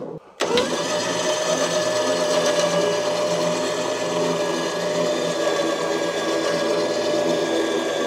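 An engine running steadily at a constant speed. It cuts in abruptly about half a second in.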